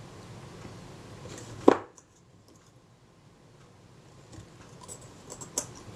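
A small metal camera part knocking once against a metal bench block: a single sharp click with a brief metallic ring about two seconds in. A few faint, light ticks of metal on metal follow near the end as the part is handled on the block.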